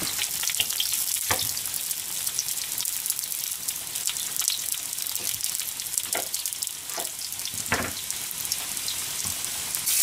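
Hot oil sizzling steadily around food deep-frying in a pot, alongside fish-sausage pieces frying in a pan. A few sharper crackles come through about one, six, seven and eight seconds in.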